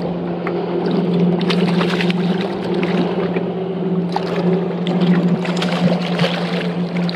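A boat motor drones steadily at a low pitch, with scattered splashes and clicks as a hooked redfish is fought in close to the boat.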